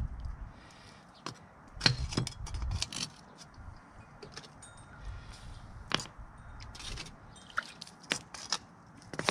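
Scattered sharp metallic clicks and tinks from steel foundry tongs and a small ladle, with a couple of bursts of low rumble.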